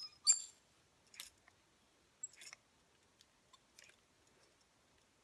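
A handful of faint, scattered clicks and soft rustles from a curling iron and the hair being wound around it, with two sharper clicks right at the start.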